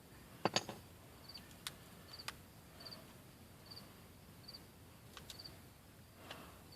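A cricket chirping faintly, short double chirps repeating about every three-quarters of a second, with a few sharp light clicks in the first couple of seconds.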